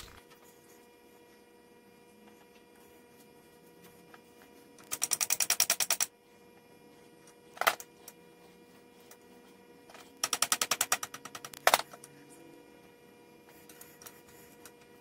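Rapid, even metallic clicking, about ten clicks a second for a second or so, heard twice, each run followed by a single sharp click, from the metal parts of a lathe quick change gearbox being worked by hand.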